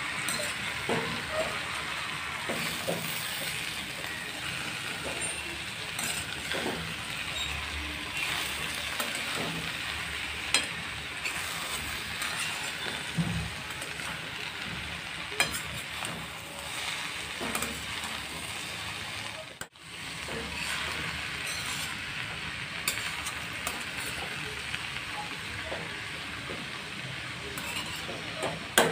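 Cabbage and soaked chana dal sizzling in a kadhai while being stirred and tossed with a spatula. Now and then the spatula scrapes and clinks against the pan. The sound cuts out for an instant about two-thirds of the way in.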